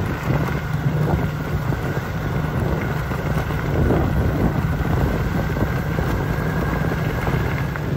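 A small engine running steadily at an even pitch.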